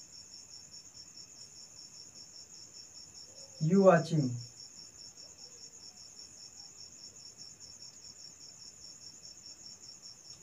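A continuous high-pitched trill of rapid, even pulses, with a fainter steady tone beneath it. About four seconds in, a man's voice makes one short sound, the loudest thing here.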